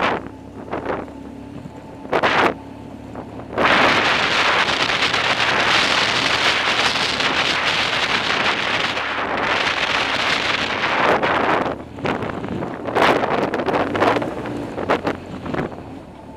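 Wind rushing over a motorcycle-mounted action camera's microphone, with the flat-twin engine of a BMW R1200GS running steadily underneath. The wind is lighter for the first few seconds apart from one short gust about two seconds in, then comes on loud about four seconds in and carries on in uneven gusts.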